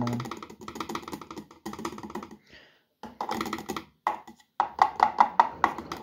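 Liquid fabric softener poured from a plastic measuring cap into a washing machine's detergent drawer: a run of quick clicks and trickles, busiest near the end.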